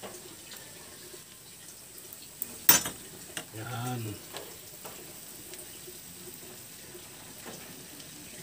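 Pancit canton noodles sizzling faintly in a hot pan, with small crackles throughout and one sharp click about three seconds in.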